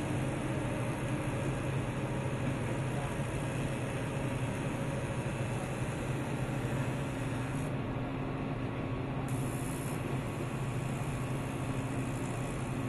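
TIG welding arc burning steadily while filler rod is fed in, a continuous hiss over a low hum.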